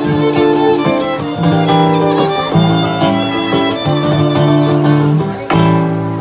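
A violin and an acoustic guitar playing a tune together live, the guitar keeping a regular strummed rhythm under the violin's melody.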